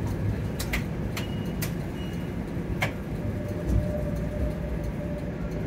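Toronto streetcar running, a steady low rumble with several sharp clicks in the first three seconds. A faint steady whine comes in about halfway through.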